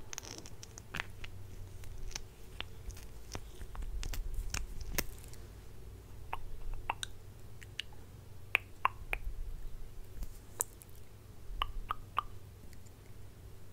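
Close-miked ASMR mouth sounds: wet lip smacks, pops and clicks at irregular intervals, sometimes two or three in quick succession, over a faint low hum.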